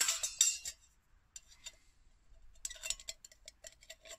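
Spring-steel wire hanger and stainless steel cup clinking together as the wire is fitted onto the cup: a burst of metallic rattling with a short ring at the start, a couple of clinks a little later, then a run of light clicks near the end.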